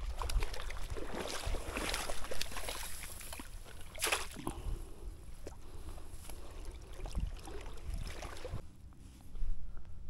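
Shallow river water splashing and sloshing as a small hooked brown trout is drawn in toward a landing net, with a sharper splash about four seconds in.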